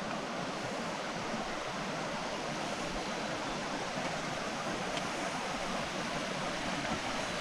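A small creek running, a steady rush of flowing water with only a little water coming down it.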